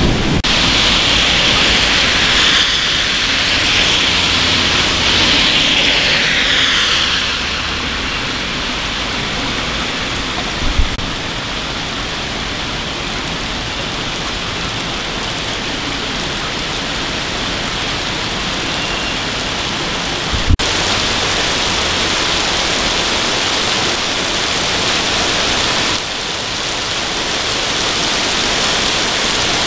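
Heavy rain pouring down steadily onto a wet street, a dense even hiss. About five seconds in, a car's tyres swish past on the wet asphalt with a falling pitch. Two brief knocks come about a third and two-thirds of the way through.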